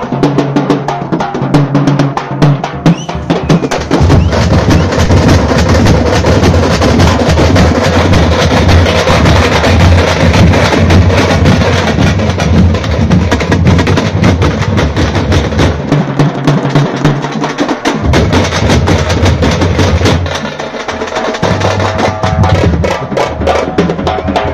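Tamte drum troupe playing a fast, loud rhythm: frame drums and smaller drums struck with sticks in dense rapid strokes, over large bass drums. The deep bass-drum beat comes in about four seconds in and drops out briefly twice in the second half.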